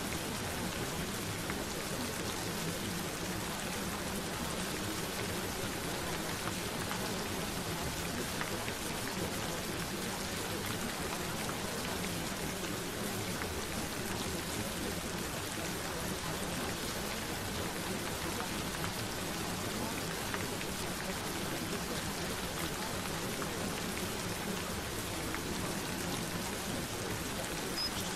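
Steady rain falling: an even hiss with scattered drops pattering.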